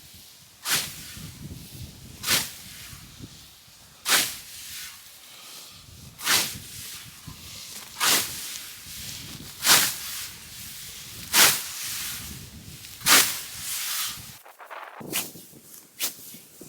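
Scythe blade swishing through standing hay grass in steady, regular strokes, about one every second and a half to two seconds. Near the end, after a short break, the strokes come quicker and lighter.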